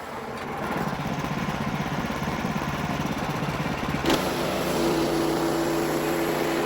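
Wood-Mizer LX55 portable band sawmill running steadily. About four seconds in there is a single sharp knock, after which a higher steady tone grows louder.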